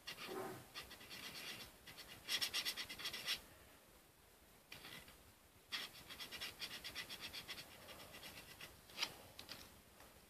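Felt-tip marker scribbling on paper in quick back-and-forth strokes, in several spells with short pauses between, the longest run near the middle.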